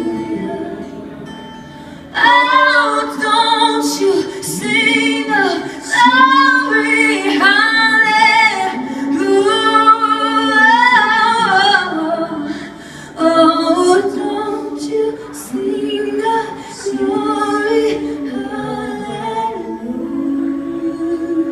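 Female voice singing long, sustained phrases with vibrato as the song winds down, lightly accompanied.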